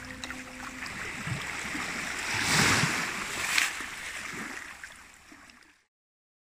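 Sea waves washing onto a beach, one breaking louder around the middle, then fading out to silence near the end. A held musical chord dies away in the first second.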